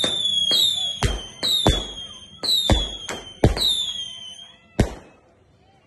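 Fireworks going off: a run of sharp bangs from bursting shells, overlapped by about five whistling rockets, each giving a high whistle that falls slightly in pitch over about a second. The bangs and whistles stop about five seconds in.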